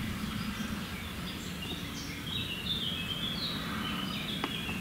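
Claas Jaguar 970 forage harvester chopping triticale, heard from a distance as a steady low drone. Over it, a bird calls in a run of short, quick high notes through the middle.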